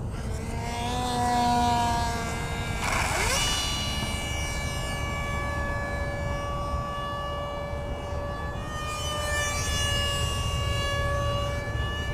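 Electric ducted fan of an RC F-117 jet model whining in flight, a siren-like whine with several tones that rise in pitch about three seconds in, then hold fairly steady. A low rumble of wind on the microphone runs underneath.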